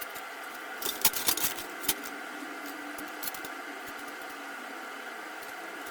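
A handful of light clicks and knocks in the first two seconds, like small tools or metal parts being handled, then a steady hum.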